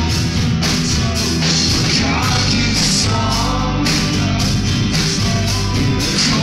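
Live worship band playing through the church PA: strummed acoustic and electric guitars and bass over a steady drum beat with cymbals.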